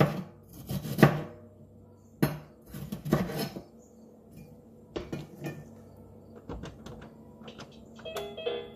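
Kitchen knife chopping ingredients on a plastic cutting board: a run of sharp, irregular knocks about a second apart, some in quick pairs.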